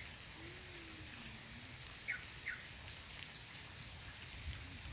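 Steady hiss of rain falling, with two short high chirps about two seconds in.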